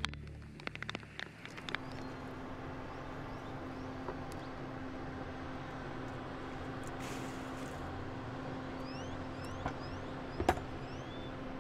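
Steady mechanical hum holding one low tone, with a scatter of sharp clicks in the first couple of seconds. A few short, high, rising chirps come near the end.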